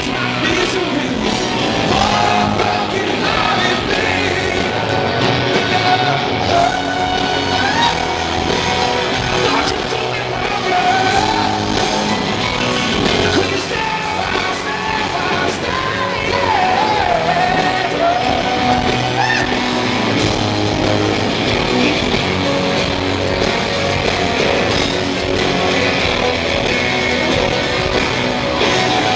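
Live rock band playing: electric guitars, bass and drums, with a male lead singer singing over them.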